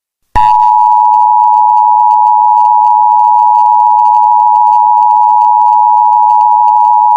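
Emergency Alert System attention signal: a loud, steady two-tone alert tone just under 1 kHz that starts abruptly about a third of a second in and holds without a break.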